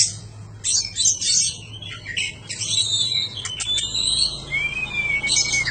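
Oriental magpie-robin (kacer) in full song: a fast, varied run of sharp chirps, harsh scratchy notes and whistles, ending in a long drawn-out whistled note.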